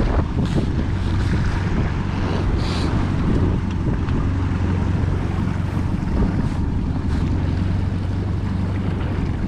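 Inflatable boat under way on choppy water: a steady outboard motor hum under wind buffeting the microphone and waves splashing against the hull.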